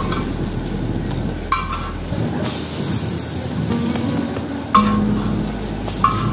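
Metal serving spoon clinking against dishes three times, the loudest about five seconds in, over a steady sizzle from the stall.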